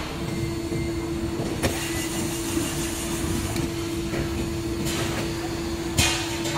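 Cordless drill motor running steadily with a constant whine, turning an adjustable plastic pedestal's threaded column to unscrew it, with a sharp knock about six seconds in.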